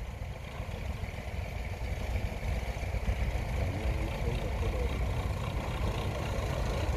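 Belarus MTZ-50 tractor's four-cylinder diesel engine running steadily under load as it pulls a loaded cassava trailer, slowly getting louder as it comes closer.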